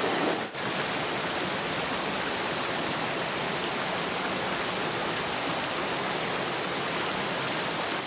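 Mountain creek running fast over rocks and small cascades: a steady, even rush of water.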